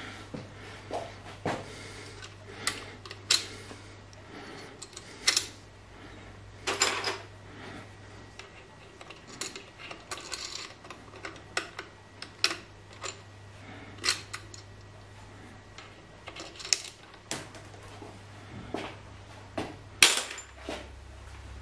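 Metal parts and a hand tool clicking and clinking irregularly, one or two sharp taps a second, while the power feed's shaft coupling and mounting on the milling machine table are worked on by hand; the sharpest click comes near the end. A steady low hum runs underneath.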